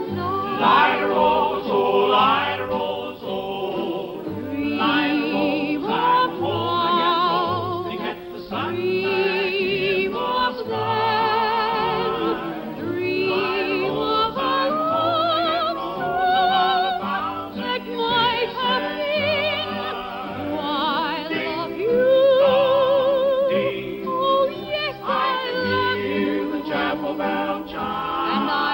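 Music: a soprano singing with wide vibrato together with a male barbershop quartet in close harmony, a soft regular low beat underneath.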